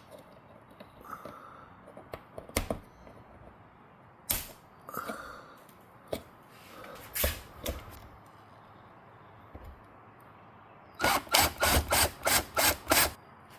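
Screws being driven back into the bottom of a garage door: scattered clicks and knocks of handling, then a run of about seven short, loud driver bursts near the end, roughly three a second.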